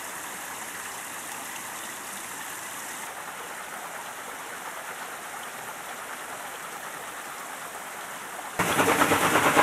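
Steady rush of running and dripping water from a wooden mill flume and the brook beneath it. Near the end it jumps to a much louder, fast, rattling splash where the flume water falls onto the overshot waterwheel.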